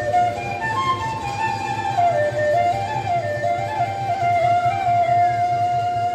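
Traditional folk music: a flute plays an ornamented melody that settles into a long held note in the second half, over a steady low drum beat.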